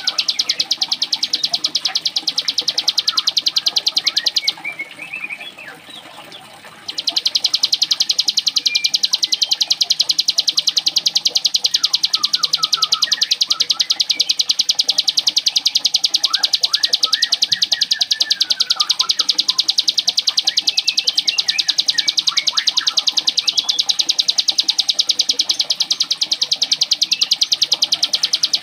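Ciblek gunung (cigun) singing a fast, very even, machine-like trill in the 'mesin jahit' (sewing machine) style. The trill breaks off for about two seconds a few seconds in, then resumes, with other chirps and short calls scattered underneath.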